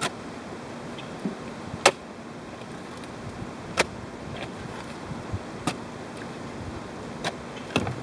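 Shovel digging into stony soil: a sharp clink of the blade striking stones roughly every two seconds, the first one the loudest.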